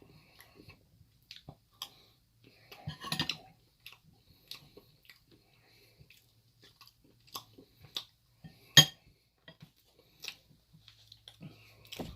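Close-up chewing of a mouthful of curry, with scattered small mouth and utensil clicks. There is a denser patch about three seconds in and one sharp click near the end.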